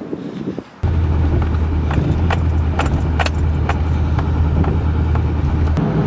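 Pickup truck driving on a highway, heard inside the cab: a steady low drone of engine and road noise that starts suddenly about a second in, with irregular light clicks over it.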